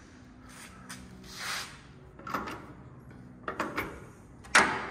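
A few short knocks and a brief rubbing rush, ending in a sharp knock near the end that is the loudest: handling noises from parts of the truck frame and suspension being touched and moved.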